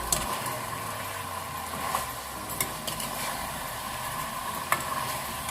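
Small krobia fish frying in a pan, sizzling steadily, with a few sharp clicks.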